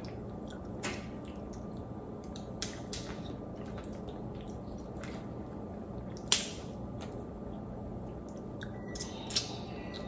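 Cooked crawfish shells cracking and snapping as they are peeled by hand, with small wet squishy clicks in between; the sharpest crack comes about six seconds in.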